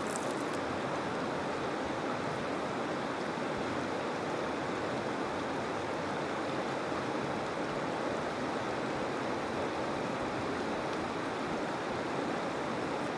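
Steady rushing of a river running over rocks.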